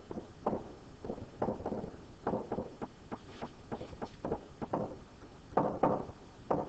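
A pen or stylus tapping and knocking against a tablet screen while someone writes by hand. The strokes come irregularly, one or two a second, a little livelier near the end.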